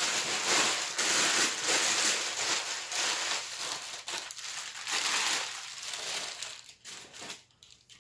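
Tissue paper stuffing being pulled out of a new leather work boot and handled, crinkling and rustling steadily, then thinning to a few light rustles over the last two seconds.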